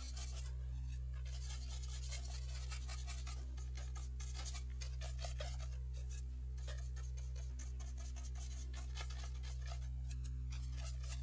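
A paintbrush's bristles scratching in quick repeated strokes as an acrylic wash is brushed over absorbent card and more paint is picked up from the palette. A steady low hum runs underneath and is the loudest part.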